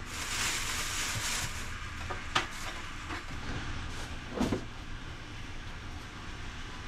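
Pot of water with kombu heating on a stove, giving off a steady hiss as it nears the boil, with a low hum under it. A sharp click about two seconds in and a light knock a couple of seconds later.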